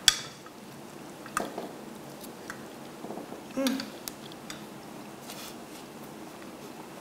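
Metal cutlery clinking and tapping on ceramic plates while people eat: one sharp clink at the start, then a few lighter taps spread through the rest.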